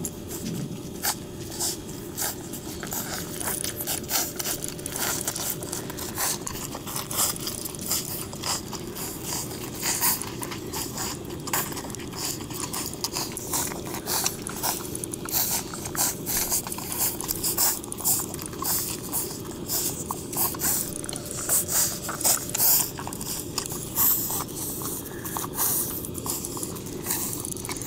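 Cocker spaniel puppies suckling at their mother's teats: a continuous, irregular run of wet smacking and clicking, several a second.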